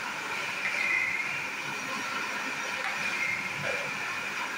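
Steady sizzling hiss from a large hot dosa griddle as rounds of dosa batter cook on it and more batter is poured on.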